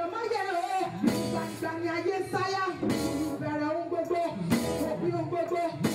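Live gospel music: a woman singing lead into a handheld microphone with other singers, over amplified band accompaniment. Sharp hits on the beat come roughly every one and a half to two seconds.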